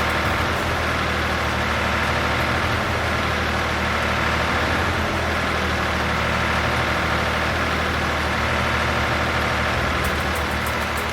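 Heavy vehicle engine running steadily at an even pitch, with a deep low hum under a dense rumble.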